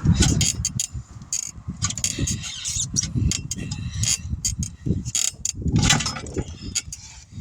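Tire-changing machine and hand tools working a tire onto a rim: irregular metallic clicks and clanks over an uneven low rumble.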